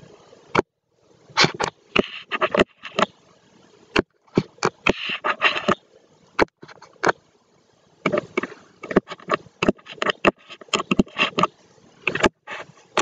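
Stylus tapping and scratching on a tablet screen while writing: an irregular string of sharp clicks mixed with short scraping sounds.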